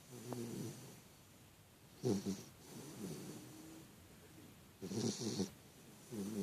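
Snoring in slow, even cycles, one about every three seconds. A loud snore comes about two seconds in and again about five seconds in, each followed by a softer breath.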